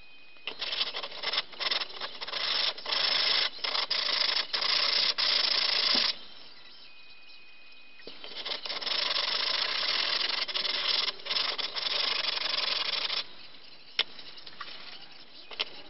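Aluminium 3D-printer build plate rubbed back and forth on sandpaper, roughening it for resin adhesion: two spells of scratchy scrubbing several seconds long with a pause between, then a single sharp click.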